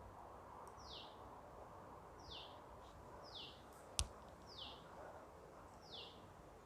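Near silence with faint, short, downward-sliding bird chirps repeating about once a second, and one sharp click about four seconds in.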